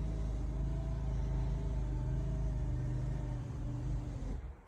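Electric TV lift motor humming steadily as it moves the television, running slowly on solar power; it winds down and stops near the end.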